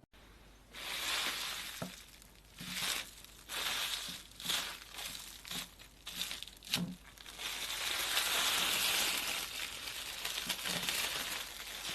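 Slime being pressed and squished by hand close to the microphone, making crinkling, crackling sounds in irregular bursts with a few soft thumps, turning into a steadier crackle in the second half.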